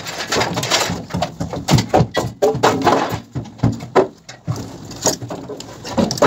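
Irregular hammer knocks and metal clatter as the clips and wedge locks holding steel-framed wall formwork panels are struck loose.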